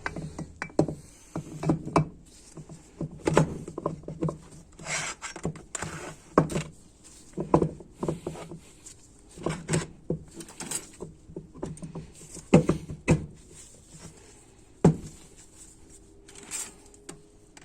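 Irregular metal clinks and knocks of automatic transmission parts, the input shaft and input drum, being handled and fitted together: a dozen or so separate taps at uneven intervals, a few louder ones about two thirds of the way through.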